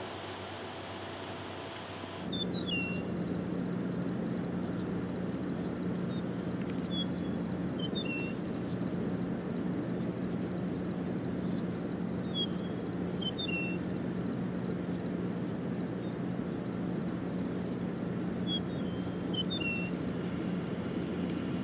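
Outdoor ambience: a steady low hum over a bed of noise, a continuous high, rapidly pulsing buzz, and a bird repeating a short falling two-note call about every five seconds.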